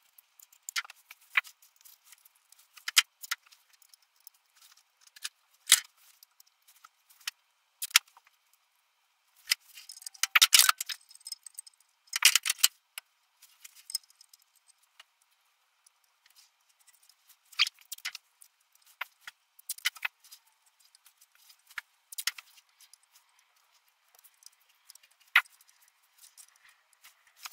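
Scattered light metallic clinks and taps of stainless steel exhaust tube bends being handled and shifted into position by hand, with a busier cluster of clatter about ten to thirteen seconds in.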